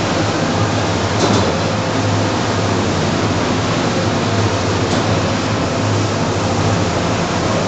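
Shotcrete spraying from a boom-mounted nozzle: a loud, steady rush of compressed air and concrete over a low, steady machine hum.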